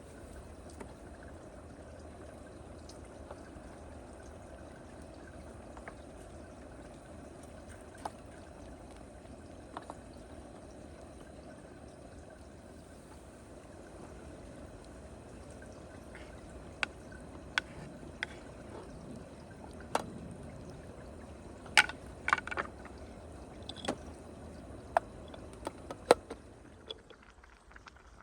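Steady watery hiss of liquid, with a scatter of sharp clicks and knocks from about halfway through, the loudest near the end.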